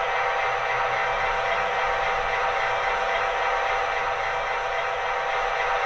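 Sound-decoder diesel locomotive engine running steadily, played through an HO-scale MTH model's small onboard speaker as part of its Proto-Sound start-up sequence. The sound is thin, with almost no bass.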